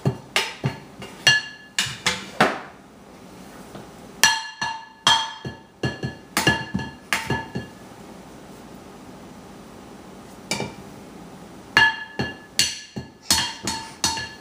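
A resonant object being struck over and over, each hit ringing with a clear pitch. The hits come in quick clusters: several in the first two and a half seconds, more from about four to eight seconds, a single hit near eleven seconds, and a last flurry near the end.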